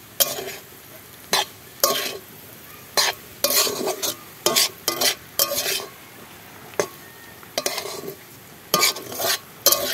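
Metal spatula scraping and tossing chowmein noodles in a large kadai: about a dozen irregular strokes, one or two a second, with a faint frying sizzle between them.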